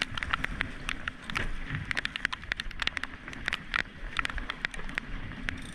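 Suzuki outboard motor running under the boat while sea water rushes and sprays at the stern, with many irregular sharp ticks over a steady low rumble.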